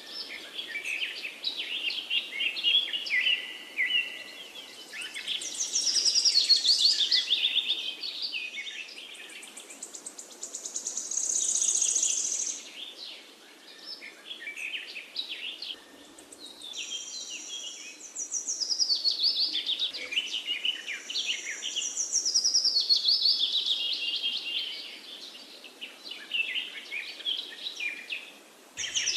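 Birds chirping and singing, with many quick chirps and falling trills one after another, swelling and fading in loudness every few seconds.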